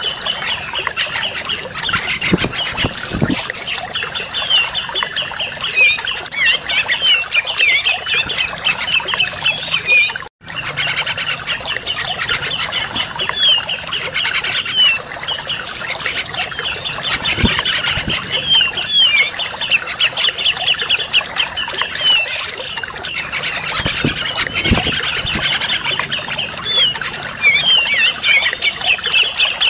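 Bird-lure recording (audio pikat) of dense, fast, overlapping chattering bird calls, used to provoke a grey-cheeked bulbul (cucak jenggot) into answering. The sound cuts out for an instant about ten seconds in, then carries on.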